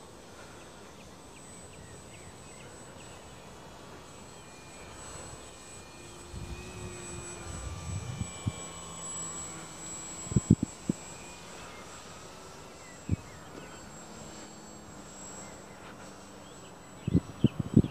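Dynam Tiger Moth RC model biplane's electric motor and propeller flying high overhead, a faint distant drone that wavers in pitch as the plane passes. A few sharp knocks, the loudest sounds, come about halfway through and again near the end.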